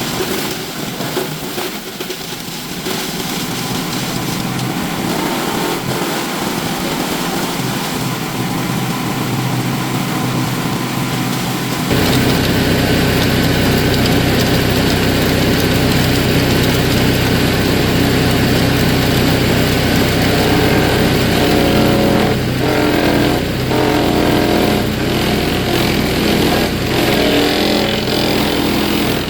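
Belt-driven wood chipper's small gas engine running steadily. About twelve seconds in, the sound cuts to a louder, closer engine, with uneven knocks in the later seconds.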